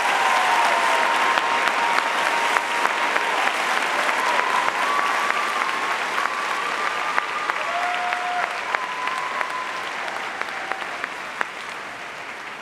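Large audience applauding, with a few long whistles sounding above the clapping; the applause fades steadily away toward the end.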